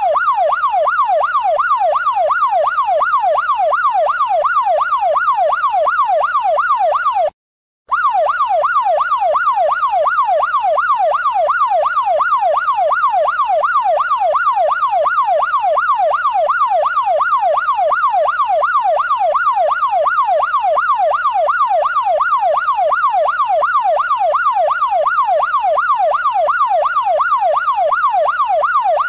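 Electronic police siren in a fast yelp, its pitch sweeping up and down about three to four times a second. It cuts out for about half a second some seven seconds in, then resumes.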